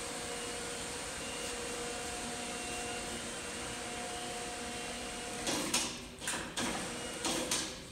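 Overhead crane's electric wire-rope hoist running steadily with a hum and whine as the hook block is lowered, then stopping about five seconds in as the hoist brake holds the hook. Several short rushing noises follow near the end.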